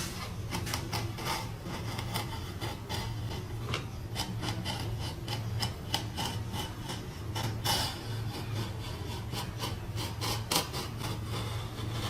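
A tool scraping and rasping against wood in quick, irregular strokes, over a steady low hum.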